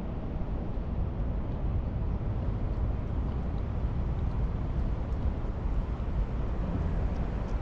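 Steady low rumble of wind buffeting the camera microphone on an open waterfront, with a faint background hum of the city and bay.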